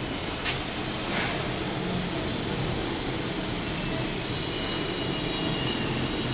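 Dawlance DWGS 2316 handheld garment steamer hissing steadily as it jets out a continuous stream of steam, with one short click about half a second in.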